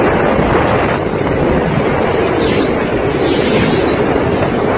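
Floodwater rushing down Mangla Dam's spillway through the opened gates, a steady heavy rush, with wind buffeting the microphone.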